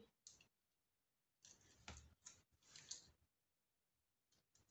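Near silence with a few faint, short clicks and scratches in the middle, from paper and craft tape being handled over a cutting mat.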